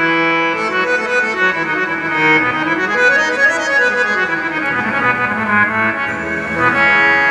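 Harmonium playing an instrumental passage of held reedy notes with a melody moving up and down, accompanying devotional singing.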